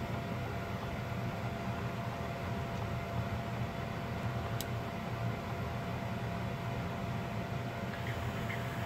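Steady low electrical hum with a thin steady whine from the powered breadboard servo rig. One sharp click about four and a half seconds in, as a hand works the breadboard, and a few faint light ticks near the end.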